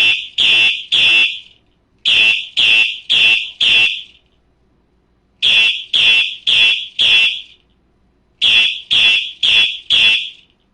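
Simplex 4903 fire alarm horn sounding a coded pattern: short, identical blasts in groups of four, about two a second, with a pause between groups. This is a four-four code, one of the older coded fire-alarm signals.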